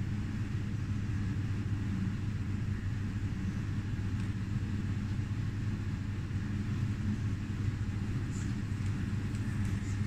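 Steady low hum of kitchen machinery, with a few faint light clicks near the end.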